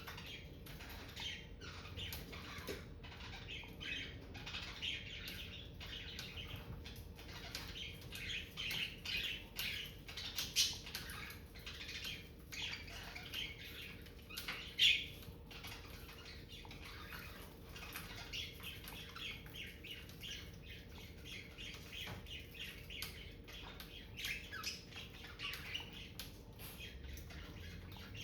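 Pet budgerigars chattering: a continuous run of quick, short chirps and warbles, with a couple of louder calls about ten and fifteen seconds in.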